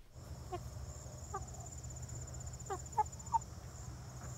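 Hens in a pen giving five short, soft calls that fall in pitch, over a steady high insect trill and a low steady hum.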